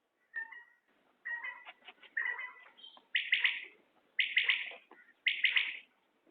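Common quail calling: short, softer notes at first, then three loud, quick three-note calls about a second apart.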